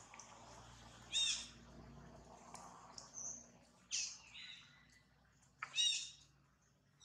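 Three short, high-pitched squeaky animal calls, about a second, four seconds and six seconds in, over faint forest background.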